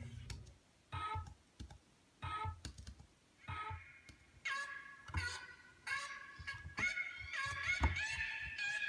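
Quiet electronic keyboard notes. There are three short single notes a little over a second apart, then from about halfway held chords, with soft clicks and thumps as each note starts.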